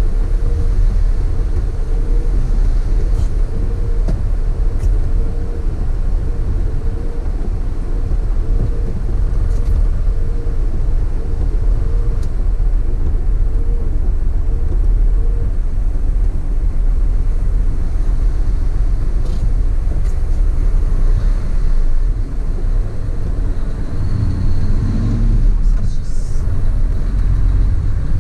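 Large road vehicle running steadily, with a continuous low engine and road rumble. Over the first half, a faint chirp repeats about every three-quarters of a second, and near the end a short tone rises and falls.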